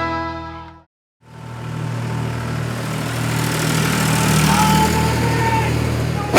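After the music fades out and a brief gap, a car engine runs steadily, with a short high squeal about five seconds in.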